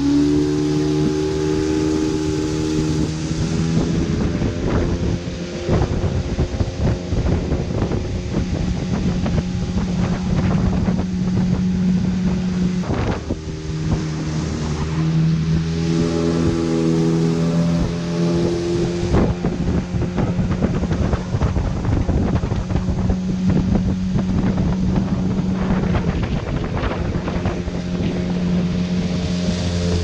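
Outboard motor of a long river canoe running at speed, its steady hum shifting pitch a few times, with water rushing past the hull and wind buffeting the microphone. The engine eases off briefly about thirteen seconds in.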